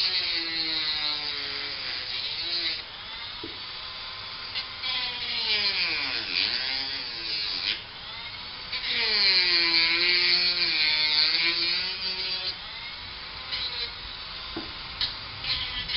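Small handheld power tool grinding or sanding, its motor pitch sagging and recovering as it is pressed against the work, with rough scraping in the louder stretches.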